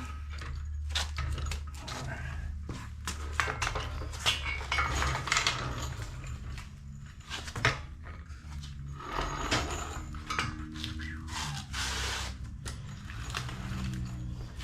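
Metal tools and hardware clinking and knocking in irregular, sharp clicks and clanks, as parts are handled and bolted up under a car, over a steady low hum.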